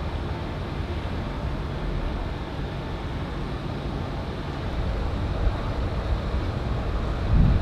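Low, steady rumble of a destroyer under way at close range, mixed with wind buffeting the microphone, with a louder gust starting just before the end.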